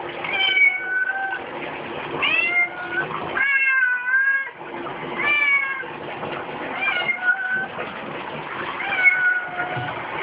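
A cat meowing over and over during a bath in a tub: about six drawn-out meows, some rising and some falling in pitch.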